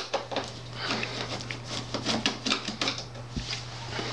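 Hand Phillips screwdriver turning screws out of the side of a metal instrument chassis: a run of small, irregular clicks and ticks over a steady low hum.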